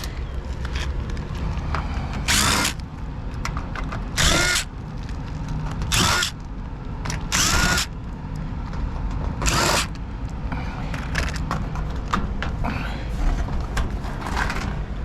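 Power drill run in five short bursts about two seconds apart, each spinning up with a rising whine, over a steady low rumble. Light scattered clicks follow near the end.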